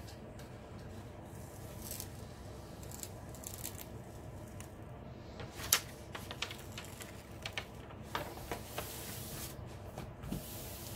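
Rustling and crinkling of a diamond-painting canvas's plastic-coated cover sheet as hands smooth it flat and peel a corner back. A string of sharp crackles comes about halfway through, the loudest near the middle.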